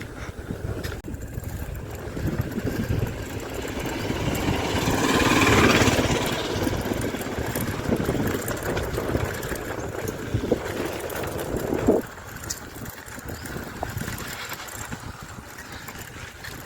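Wind and road noise from riding a bicycle, with a motor vehicle passing: it swells to a peak about five or six seconds in and fades away.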